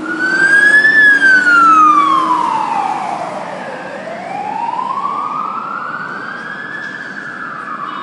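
Fire truck siren wailing: a slow rise-and-fall tone that climbs briefly, falls for about three seconds to a low point, then climbs again, peaking near the end. It is loudest in the first two seconds.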